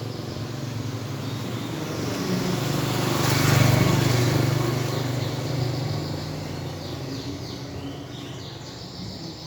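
A road vehicle passing by: its engine hum swells to its loudest a few seconds in, then slowly fades away.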